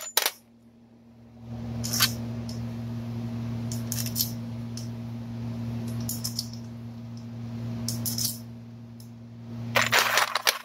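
Steel cam-cap bolts clinking as they are dropped and set into the camshaft bearing caps of a Ford 5.4L cylinder head: single clinks about every two seconds, then a quick flurry near the end. A steady low hum sits underneath.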